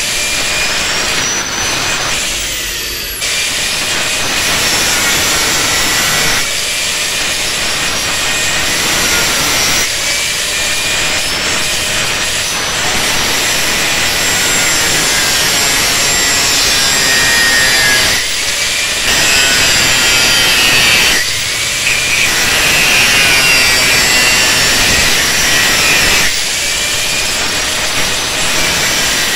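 Angle grinder with an abrasive cut-off disc cutting through a steel saw blade: a loud, continuous grinding with a high whine. Several times the load eases briefly and the whine glides back up in pitch.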